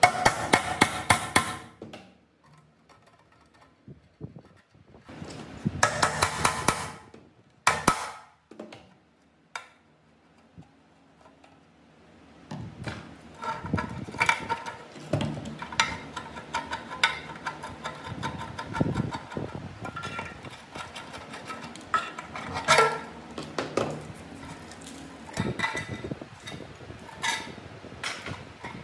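Hand tools working on the rusty steel blade guard of an old metal-cutting saw during disassembly. Short bursts of rapid tapping and rattling come near the start and again about six seconds in. From about halfway there is a longer run of irregular metal clinks, knocks and scraping, with some ringing, as the rusted parts are worked loose and handled.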